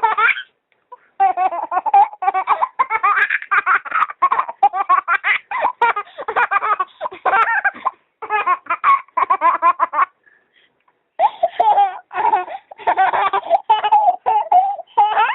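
A baby laughing in long runs of rapid, high-pitched giggles, with short pauses about a second in and again around ten seconds in.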